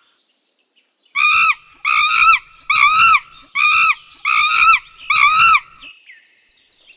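A monkey calling: about six loud, high-pitched screams in a row, roughly one every 0.8 seconds, each rising and then falling in pitch.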